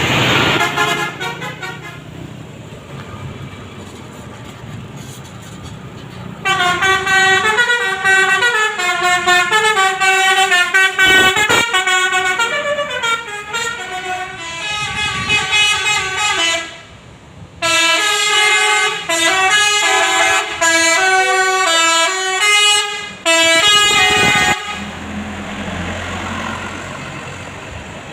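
Basuri telolet horn, a multi-tone bus air horn, playing a quick melodic tune of many changing notes. It starts about a quarter of the way in, breaks off briefly past the middle, and stops near the end. A bus engine is heard running before and after.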